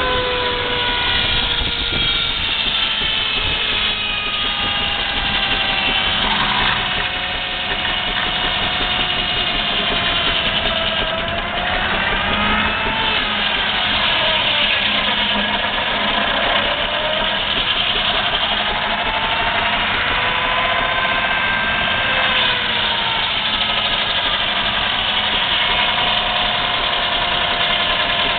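Engine-driven sawing machinery running steadily: a constant engine beat under a whine that slowly falls and then rises in pitch, sagging and recovering several times.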